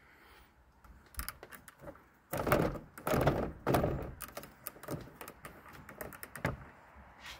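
Light plastic clicks and knocks from a hand handling a roof vent fan's housing and mesh screen, with three short scuffing bursts from about two and a half to four seconds in and another at about six and a half seconds.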